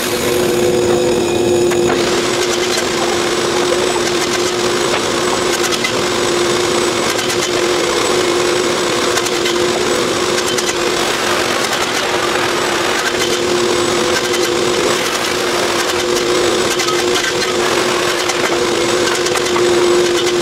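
Wooden boards clattering and knocking together as they are handled and stacked, over a steady machine hum.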